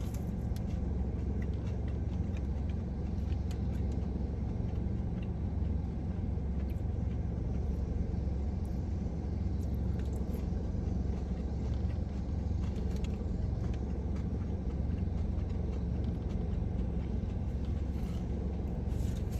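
Steady low rumble with faint, scattered small clicks and taps.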